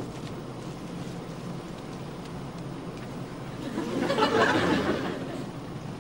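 Studio audience laughing, swelling about four seconds in and fading again near the end, over a steady low aircraft-cabin hum.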